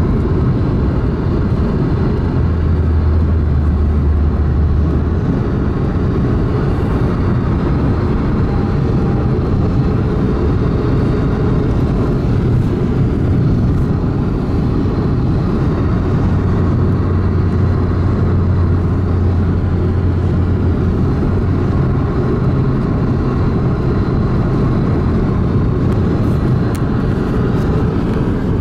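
A car driving on the road: steady, loud tyre and engine noise. A deeper low hum swells twice, for a few seconds each.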